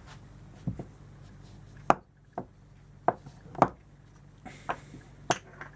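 Small parts being handled and set down on a workbench: a series of about seven sharp clicks and knocks at irregular intervals over a faint steady hum.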